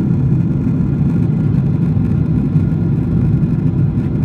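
In-flight cabin noise of an airliner: a steady low rumble of engine and airflow noise heard from inside the cabin.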